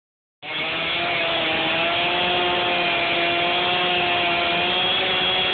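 Chainsaw engine running steadily at high speed, its pitch held level as it cuts into a tree trunk.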